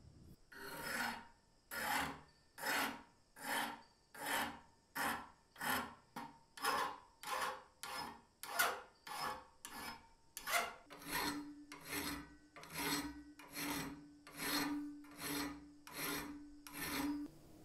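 Flat hand file rasping across the edge of a steel tile-cutter lever held in a bench vise, in steady even push strokes about one every three quarters of a second, filing off rust damage and casting imperfections. From about two-thirds of the way in, a faint steady ring sounds under each stroke.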